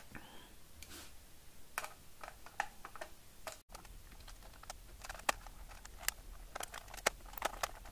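Faint, irregular small clicks and taps of a screwdriver and a short piece of wire being worked at the screw terminals of a plastic electrical switchboard, as the wire end is fitted to a switch terminal. The clicks come more often near the end.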